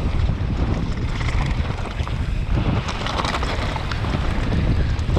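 Heavy wind buffeting the microphone of a body-mounted action camera at speed, a steady low rumble with frequent short rattles and knocks from the rough ground underneath.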